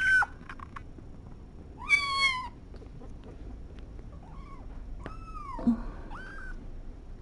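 Very young kittens mewing in short, high calls: one right at the start, a louder wavering mew about two seconds in, faint little squeaks near four seconds, and two more near the end, the first falling in pitch, with a brief low bump under it.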